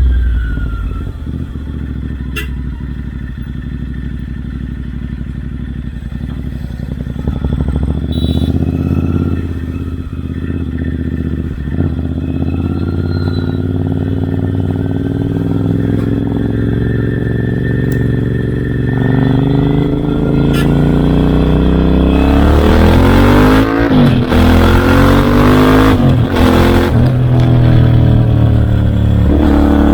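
Royal Enfield Interceptor 650 parallel-twin running through aftermarket Red Rooster Performance exhausts, holding steady at low revs. About 22 s in it accelerates hard: the revs climb, drop at a shift, climb again and drop again, with wind noise rushing over the microphone during the pulls.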